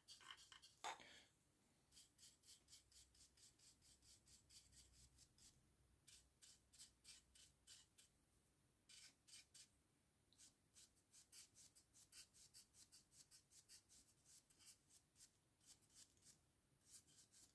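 Faint, quick scratchy strokes of a large dry brush flicked back and forth over a plastic miniature's wing membranes, several strokes a second in runs with short pauses, with one louder soft sound about a second in.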